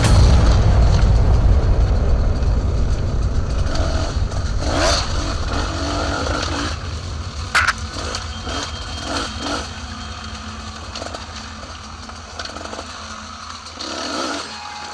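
Dirt bike engine running under way, picked up by the rider's helmet camera, gradually getting quieter. A few knocks and scrapes from the trail come through, with one sharp crack about seven and a half seconds in.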